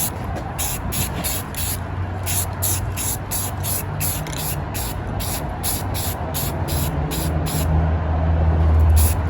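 Aerosol can of primer spraying with a hiss, over background music with a steady beat and bass.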